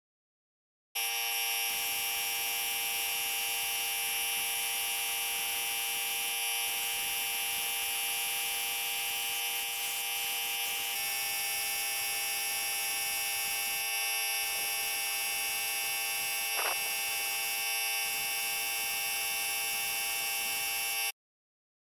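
Electric piston air compressor running, with a hopper spray gun blowing out cork coating: a steady, buzzy, many-toned sound. It starts and stops suddenly, and its pitch steps slightly about halfway through.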